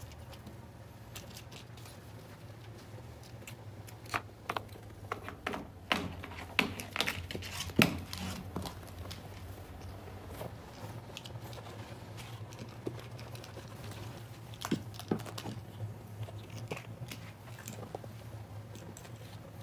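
Scattered clicks and knocks of a small plastic dental floss case being batted and pounced on by a kitten on carpet, bunched in a flurry about a third of the way in and a few more past the middle, over a low steady hum.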